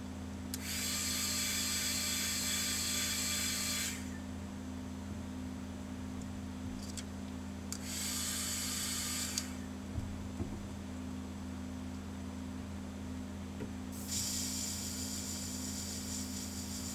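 Airbrush spraying paint in three separate hissing bursts, each a few seconds long, over a steady low machine hum, with a few small clicks between bursts.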